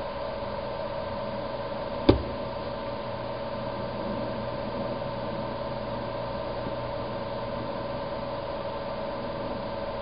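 Steady mechanical hum with a few fixed tones, broken by one sharp click about two seconds in.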